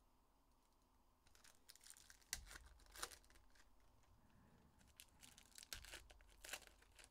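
Foil trading-card pack wrappers being torn open and crinkled by hand, in two faint spells of crackling with sharp snaps, the first starting about a second in and the second about five seconds in.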